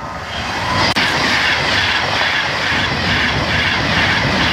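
Train passing close by at speed: a loud, steady rush of wheel and rail noise with low rumble, building over the first second, with a single sharp click just before it peaks.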